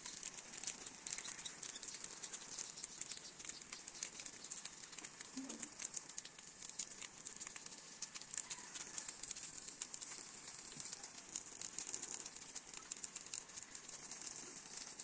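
Water spraying from a garden hose and pattering onto dirt ground and a wire pigeon cage: a steady high hiss with fine crackle.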